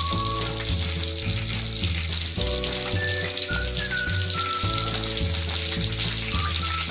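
Soya chunks deep-frying in medium-hot oil: a steady, dense sizzle. Background music with a stepping bass line and a melody plays under it throughout.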